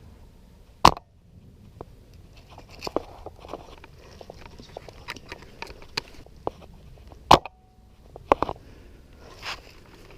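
Close rustling and crunching of dry vegetation, with scattered small clicks. Two sharp, loud clicks stand out, about a second in and about seven seconds in.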